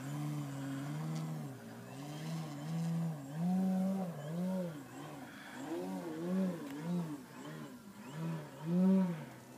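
Electric aerobatic RC plane's Hacker A60 motor and 21x10 propeller droning, steady at first, then rising and falling in quick repeated throttle blips, the loudest one near the end.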